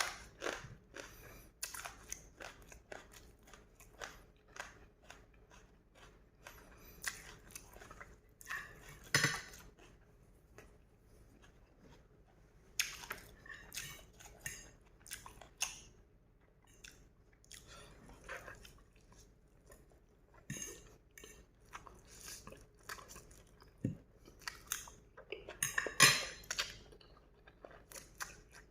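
Close-miked eating sounds: chewing and crunching food, with irregular clicks of cutlery against a bowl or plate. A louder clatter comes about nine seconds in and another about twenty-six seconds in.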